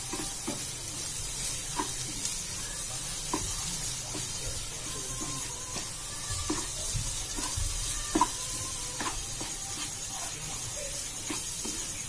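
Black plastic spatula stirring a thick onion-tomato masala in a nonstick kadai, scraping and knocking against the pan at an irregular pace, over a steady sizzle of the masala frying. The loudest knock comes about eight seconds in.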